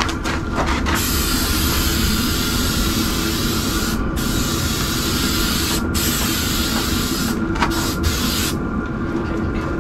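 Aerosol can of spray adhesive hissing as glue is sprayed onto the edge of an EVA foam tile, in several long bursts with brief pauses between them. It starts about a second in and stops near the end.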